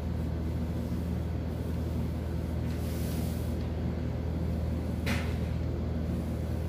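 Steady low hum, with a pencil drawing on brown pattern paper over it: a soft scratch about three seconds in and a light tap a little after five seconds.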